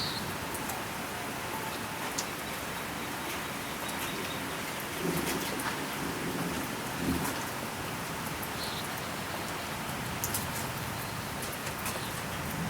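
Steady rain falling, with faint scattered drop ticks, and a low rumble of thunder about five seconds in and again near seven seconds.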